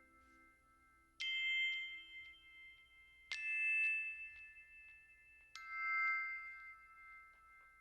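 Three ringing chime notes in background music, struck about two seconds apart, each dying away over a second or two.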